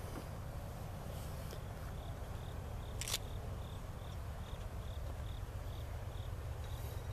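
Steady low rumble of an approaching Norfolk Southern diesel freight train, growing slightly louder, with an insect chirping about two and a half times a second and a single sharp click about three seconds in.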